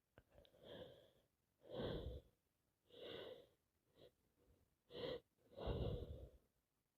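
A woman with a heavy head cold breathing noisily through a congested nose: six short, gasping breaths, each about half a second long and a second or so apart.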